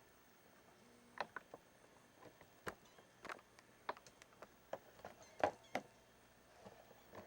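Kittens scrabbling about in a cardboard box: irregular light scratches and taps of small claws, loudest about five and a half seconds in.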